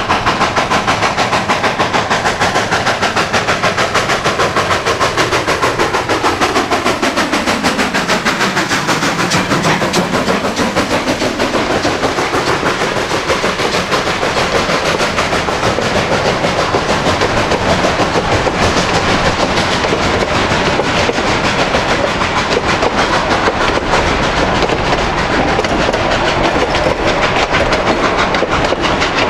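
Train running along the track: a steady, fast clatter of wheels and running gear, with a tone that slides down and back up a few seconds in.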